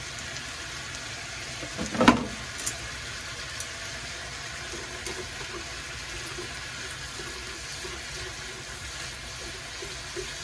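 Squid, pork and vegetable stir-fry sizzling steadily in a frying pan as it is stirred with chopsticks, with one sharp clack about two seconds in.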